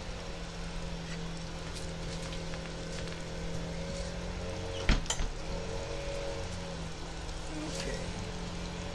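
Small engine of lawn power equipment running steadily, its pitch wavering a little. A single sharp knock about five seconds in.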